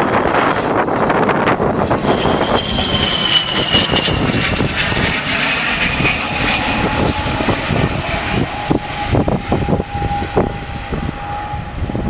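ATR 72 twin-turboprop airliner's engines and propellers passing low overhead on landing approach, a steady drone with a whine that falls in pitch as it goes by, then easing slightly as it heads away. Wind gusts buffet the microphone throughout.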